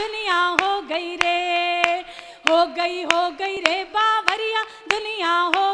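A woman singing a refrain unaccompanied, holding long notes, with hands clapping along in a steady beat, a little under two claps a second.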